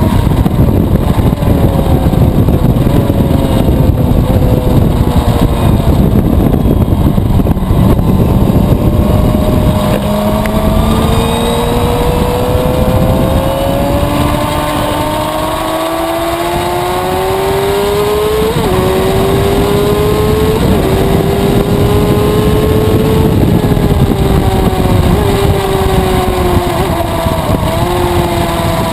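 2011 Suzuki GSX-R750's inline-four engine running hard around a racetrack. For the first several seconds it is buried under heavy wind rush. After that its note climbs and falls with throttle and gear changes, with several short jumps in pitch.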